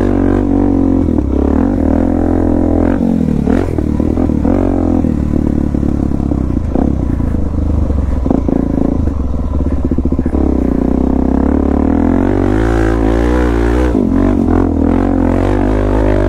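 Suzuki DR-Z400S single-cylinder four-stroke dual-sport engine with a slip-on exhaust, running under load off-road, its revs rising and falling repeatedly as the throttle is worked. A few short knocks and clatter come from the bike over rough ground.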